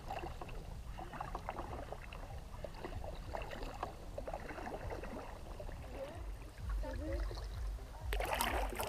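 Double-bladed kayak paddles dipping and pulling through calm water, with small irregular splashes and drips off the blades. A louder splashy rush comes near the end, over a low rumble.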